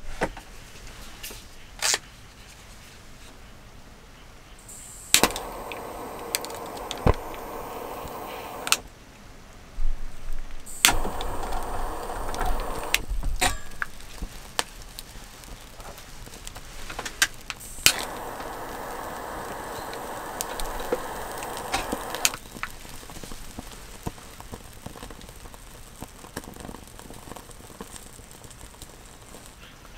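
A gas lighter clicking and hissing while it lights the fuel tablet in a small folding pocket stove: sharp clicks, then three stretches of steady gas hiss lasting a few seconds each, each begun and ended by a click.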